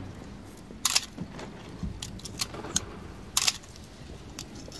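Canon AE-1 35 mm film SLR's mechanism clacking twice as film is loaded and wound on, about a second in and again about two and a half seconds later, with lighter clicks and handling of the camera body between.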